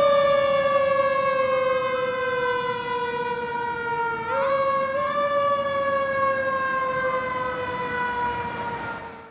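Federal Q mechanical siren on a fire engine, one pitched wail slowly winding down, wound back up briefly about four seconds in, then coasting down again and fading away near the end.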